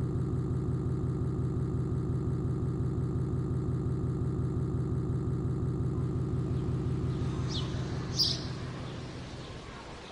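An engine idling steadily with an even low throb, starting abruptly and fading away over the last few seconds, while a couple of short high bird chirps come in near the end.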